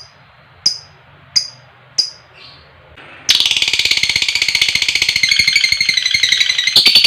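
Lovebird giving three short, sharp chirps and a softer call, then breaking about three seconds in into a long, rapid, high-pitched chattering trill, the 'ngekek panjang' long chatter.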